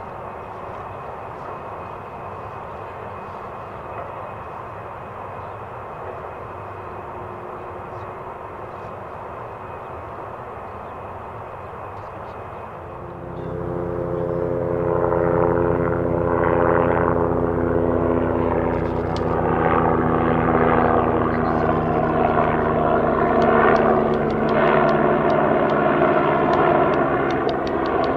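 Jet engines of a Xian Y-20A Kunpeng four-engine transport running with a steady whine. About halfway through they get much louder, with several tones sliding slowly down over a broad rushing roar.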